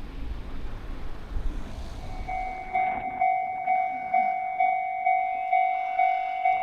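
Japanese railway level-crossing alarm ringing: an electronic bell that starts a little over two seconds in and repeats evenly, about two dings a second. Before it, a low rumbling noise.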